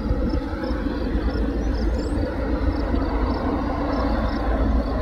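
Distant freight train led by a GE ES44DC diesel locomotive approaching, a steady low rumble. Faint high chirps repeat over it, about two a second.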